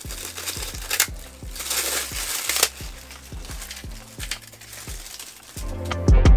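Plastic packaging crinkling and rustling as a small part is unwrapped by hand, over faint background music with a steady beat. The music turns much louder near the end.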